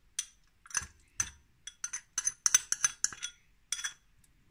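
A metal spoon clinking and scraping against a porcelain bowl while cottage cheese is scraped out of it: a dozen or so light, ringing taps, irregular and quickest around the middle.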